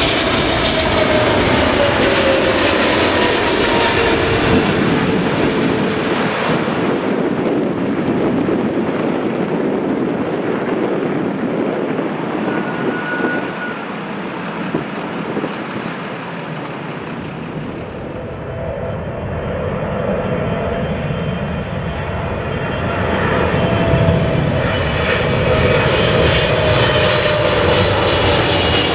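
Boeing 777 twin-jet airliners on final approach. The first passes low overhead with a steady roar and a falling whine. The noise drops to a quieter, more distant jet sound in the middle, and a second 777 builds up loud again toward the end.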